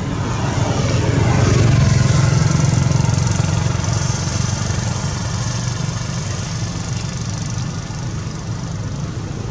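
Low rumble of a motor vehicle's engine going by, swelling to its loudest about two seconds in, then holding as a steady background drone.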